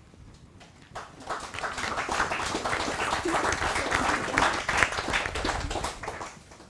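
A small group of people applauding. The clapping starts about a second in and dies away near the end.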